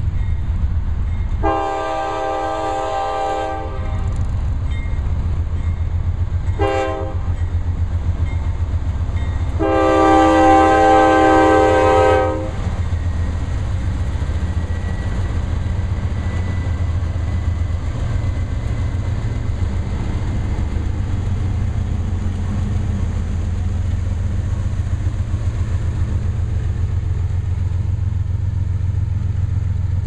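Lead Norfolk Southern GE Dash 9-44CW locomotive sounding its multi-note air horn for a grade crossing: a long blast, a short one, then a final long, loudest blast. Under it and after it, the steady low rumble of the slow freight's GE diesel locomotives passing close by, with wheels clicking over the rail.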